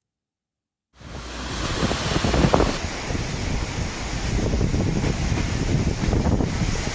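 Storm noise starting about a second in: a steady rush of wind and water, with wind buffeting the microphone.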